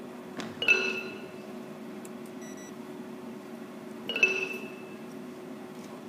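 Ranat ek (Thai xylophone) played with mallets in two brief flurries of struck notes, one about a second in and another about four seconds in, each ringing out and dying away within half a second.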